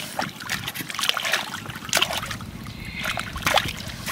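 Shallow muddy water splashing and sloshing in irregular bursts as hands grab a fish in it.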